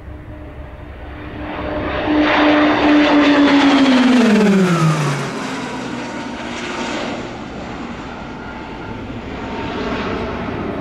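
A pair of Pilatus PC-21 turboprop trainers making a fast pass with their propellers droning. The sound grows loud about two seconds in, and the propeller tone drops steeply in pitch as they go by, around four to five seconds in. A fainter engine sound follows.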